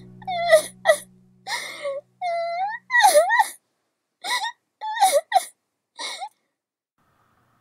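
A voice actor's performed sobbing for Fluttershy: high, wavering wailing cries broken by catches of breath. The cries come in about eight short bursts with pauses between them and stop about six seconds in.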